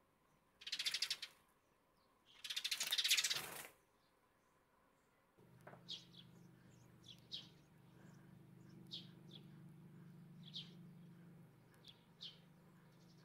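Eurasian tree sparrows: two loud bursts of rapid fluttering in the first four seconds, then short high chirps every second or two over a steady low hum.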